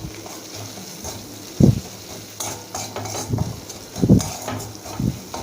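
Ginger, green chilli and ground spices being stirred in a little hot mustard oil in a kadai: a faint sizzle, with the stirring utensil knocking and scraping against the pan about four times.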